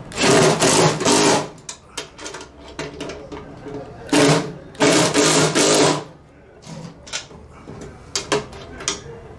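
Cordless impact driver running in three bursts, a long one, a brief one and another long one, with a socket running nuts down onto the bolts of a steel pannier mounting bracket. Light clicks between the bursts.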